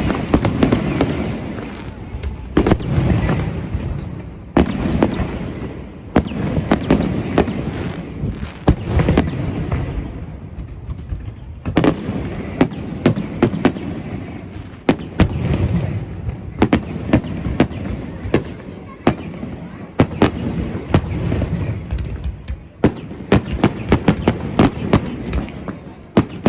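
Fireworks display: a rapid, irregular series of sharp bangs and crackles from shells bursting, over a continuous low rumble.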